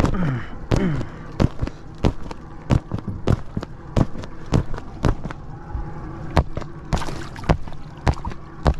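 Inflatable vinyl swan pool float being handled and pressed against a boat's gunwale: an irregular run of sharp knocks and crackles, several a second, with a couple of falling squeaks of vinyl in the first second and a short rush of noise about seven seconds in.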